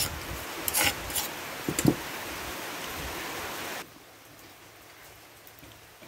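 Steady hiss of rain falling on the surroundings, with a few light knocks in the first two seconds. About four seconds in it drops suddenly to a much fainter hiss.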